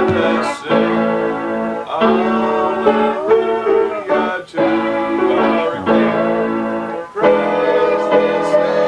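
Keyboard instrument played in held chords, in phrases of two to three seconds with short breaks between them, with no singing.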